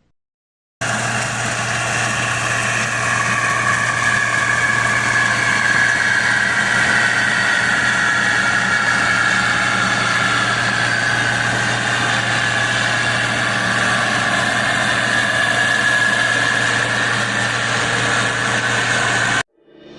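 A harvest machine's engine running steadily at a constant speed. It starts abruptly about a second in and cuts off suddenly just before the end.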